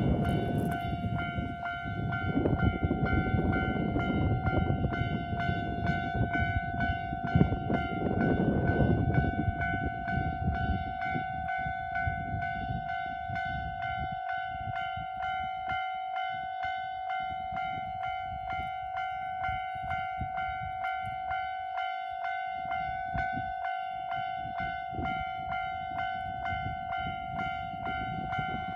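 Japanese railway level-crossing warning bell ringing: an electronic ding repeated evenly at about two to three strikes a second. A low rumble runs under it for the first ten seconds or so, then fades.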